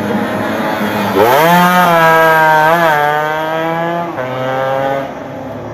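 Buzzing two-stroke 115 cc racing motorcycle engine at full throttle as it races past. Its pitch climbs sharply about a second in, holds high with a brief wobble, then drops around four seconds in before the sound fades.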